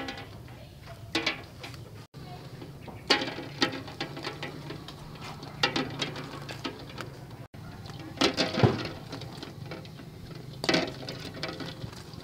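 Eggs being put one at a time into a pot of water, each making a short knock or plop, every second or two, over a low steady hum.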